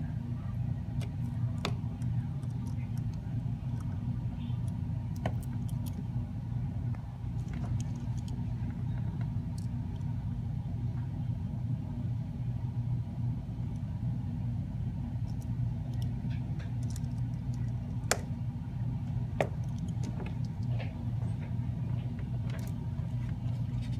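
Steady low background hum, with scattered small sharp clicks from tools and connectors on the phone's parts during reassembly. The two loudest clicks come close together near the end.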